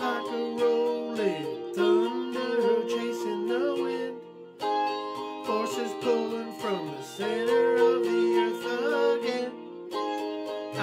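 Electric guitar playing an instrumental passage of picked and strummed chords, with some notes sliding in pitch; the playing thins out briefly about four seconds in.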